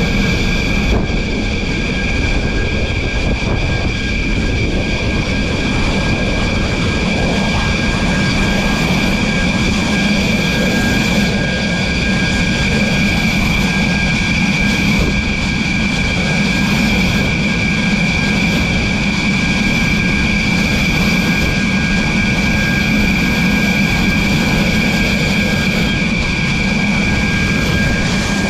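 Jet turbine engines running on a carrier flight deck: a steady high whine of several tones over a constant low rumble.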